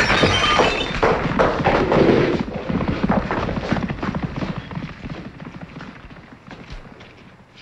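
A sudden loud crash, then clattering that dies away over about two seconds. After it come quieter shuffling steps and movement as people get up and move across the floor.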